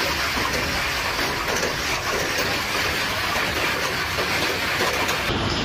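Heavy rain mixed with hail pouring down in a dense, steady hiss.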